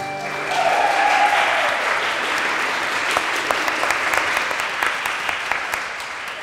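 Audience applause after a folk dance, with a single whoop that falls in pitch about a second in; the last note of the fiddle dance music dies away at the very start.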